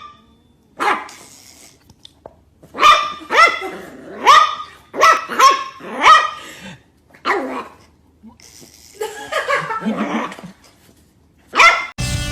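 A dog barking: a series of loud, sharp barks at uneven intervals, with a rougher, drawn-out bark and growl about nine seconds in.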